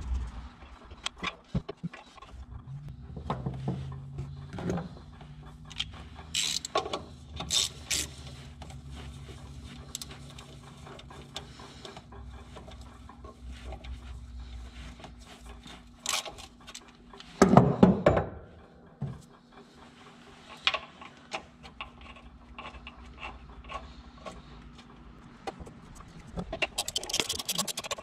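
Hand tools on a mower's engine mounting bolts: scattered metal clicks, clinks and scrapes of a wrench and ratchet. There is one louder clunk a little past the middle and a fast run of ratchet clicking near the end.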